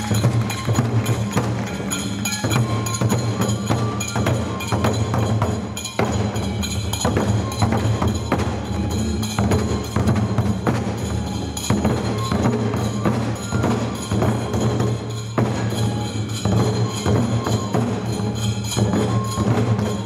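Japanese folk-dance music: drums and a fast, even clacking percussion beat that keeps going without a break.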